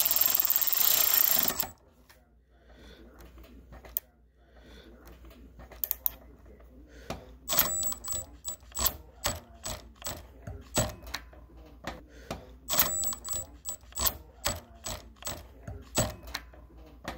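A loud rush of noise for the first second and a half, cutting off suddenly. Then a hand ratchet clicks in short strokes, a few clicks at first and then about two a second from about seven seconds in, as it tightens the ignition coil's mounting bolt on a small engine with the coil air gap set by a feeler gauge.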